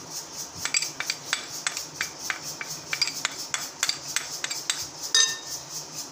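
Metal spoon tapping and scraping against a small ceramic plate and a glass mixing bowl as cornflour is spooned out: a quick run of light taps, about four a second, then one louder ringing clink about five seconds in.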